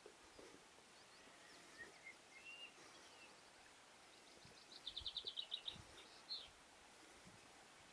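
Faint songbird calls in near quiet: a few short high chirps, then a rapid trill of about ten high notes about five seconds in.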